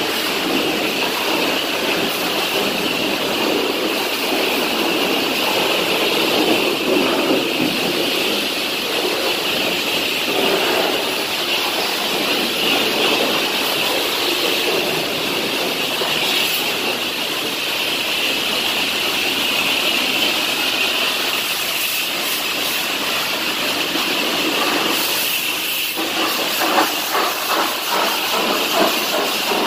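High-pressure washer spray blasting water against a semi truck's body: a loud, steady hiss of spray. It turns choppier near the end.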